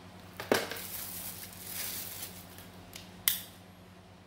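Packaging of a mini milk frother being opened and the frother taken out: a sharp snap about half a second in, then about two seconds of plastic and cardboard rustling, and another sharp snap just after three seconds.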